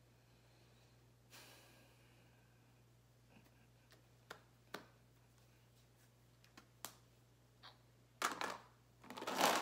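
Lip balm being handled and applied to the lips: scattered faint clicks, then a louder burst of breathy noise near the end.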